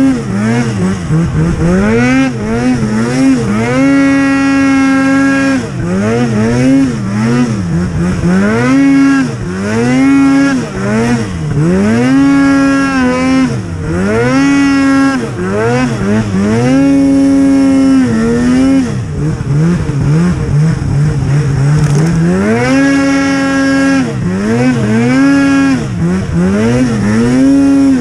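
Snowmobile engine being ridden through deep snow, revving up and down over and over as the throttle is worked, its pitch rising and falling every second or two and now and then held steady for a moment.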